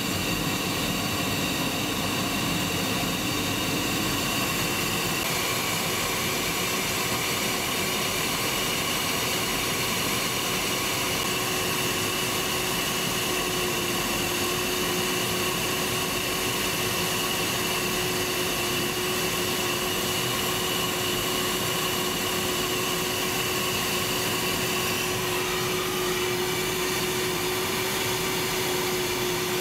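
Steady cockpit noise inside a Tornado GR4 on approach with its landing gear down: the rush of airflow and the run of its twin RB199 turbofans, with a steady whine that shifts slightly in pitch a few times.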